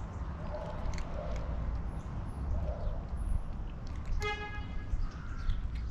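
Steady low rumble of outdoor traffic, with one short, flat-pitched car horn toot about four seconds in.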